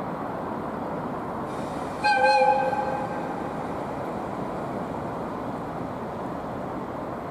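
DD51 diesel-hydraulic locomotive's twin V12 diesel engines running steadily, with one short blast of its air horn about two seconds in, lasting under a second.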